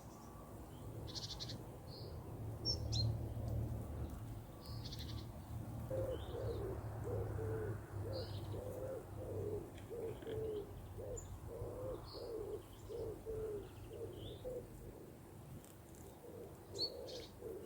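A pigeon cooing, a long run of short, low repeated notes starting about six seconds in, with small birds giving scattered high chirps over a low rumble.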